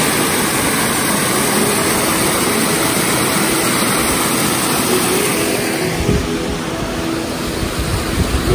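Mountain creek water rushing and splashing over boulders at a small cascade, a steady loud rush, with a deeper rumble joining about six seconds in.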